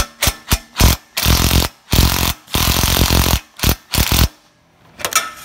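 A power tool run in a string of short and longer bursts, the longest almost a second, stopping a little past four seconds in.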